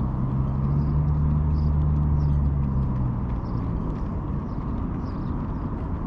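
A low, steady engine hum that fades away after about three or four seconds, over constant outdoor background noise.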